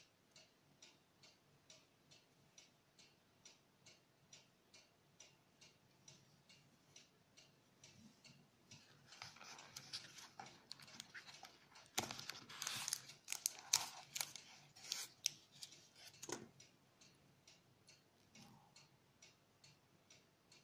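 Hands rummaging in a small cardboard gift box and pulling out a coiled charging cable. Rustling and scraping start about nine seconds in, with sharp clicks, loudest between about twelve and sixteen seconds. A faint steady ticking, a little over two ticks a second, runs underneath throughout.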